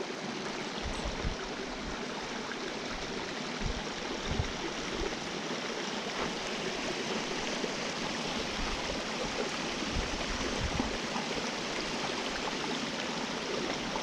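Fast-flowing creek water rushing steadily over and between rocks, the creek running high after recent rain.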